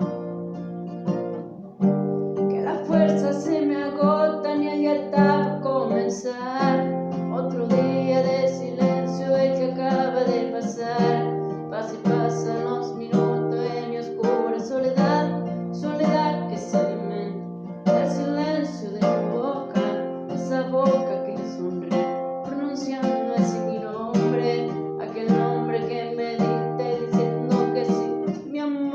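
Acoustic guitar playing a song cover, with a voice singing the melody over it. The guitar plays softly at first and the song fills out about two seconds in.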